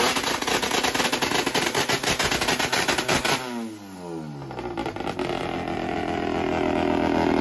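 Small van's turbocharged engine revving hard through a burnout with a rapid stuttering pulse, then the revs drop with a falling pitch about three and a half seconds in and settle into steadier running.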